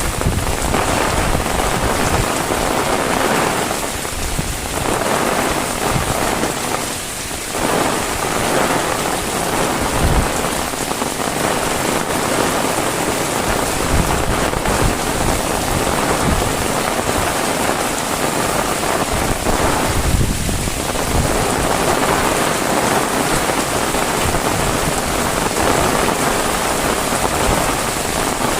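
Heavy rain pouring steadily, a dense even hiss of drops hitting surfaces.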